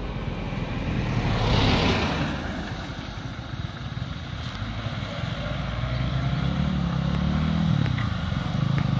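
Road traffic passing at low speed: a vehicle goes by close about one and a half seconds in, then small motorcycle engines running and getting louder near the end.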